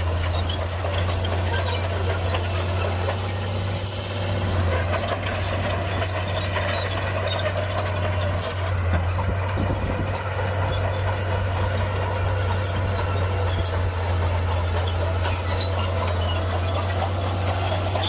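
Heavy diesel engine of earthmoving machinery running steadily, a low continuous drone, with scattered small clicks and knocks over it.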